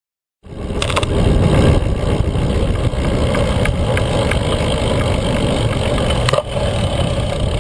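Wind buffeting a bike-mounted action camera's microphone while cycling on concrete, mixed with the steady rumble of the tyres. It starts abruptly after a brief silence, and a few sharp clicks come about a second in and again near the end.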